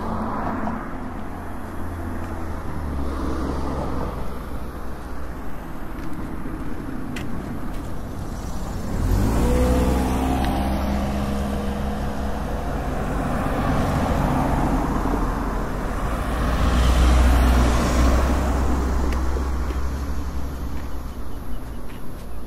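Motor vehicles going past on a road, with engine hum and tyre noise. One passes about nine seconds in with its engine note falling, and the loudest passes about seventeen seconds in.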